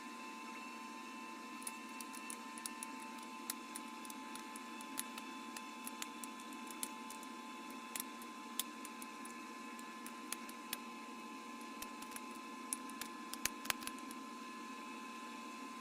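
Irregular small sharp clicks of flakes snapping off bottle glass as it is knapped, over a steady hum with a faint whine.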